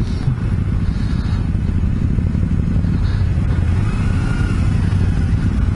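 Kawasaki Ninja 250 motorcycle engine running steadily at cruising speed, heard from the rider's own bike with wind noise over the microphone.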